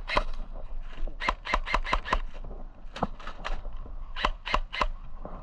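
Airsoft rifle being worked by hand while it fails to shoot: sharp clicks in short bursts of three to five, about four a second, with pauses between the bursts.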